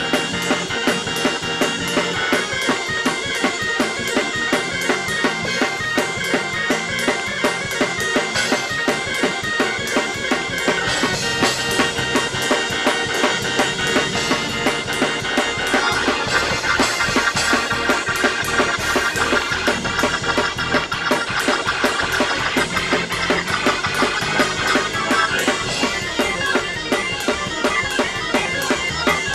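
Fast gospel praise-break music: organ playing over a drum kit keeping a quick, steady beat.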